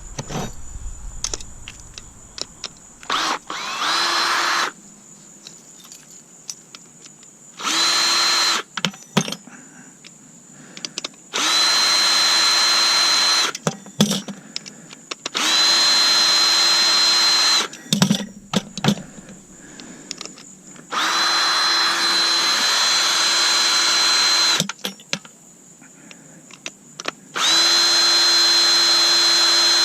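Power drill running in six short bursts of a steady whine, each one to three seconds long, with small clicks and rattles of loose parts between them, as screws are driven out of a stainless-steel coffee maker being stripped for scrap.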